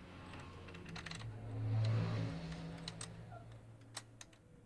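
Light metallic clicks and taps of an open-end spanner and fingers on the paper-feed linkage of a small offset press, as the feed-pull setting is adjusted. Under them a low hum swells to its loudest about two seconds in, then fades.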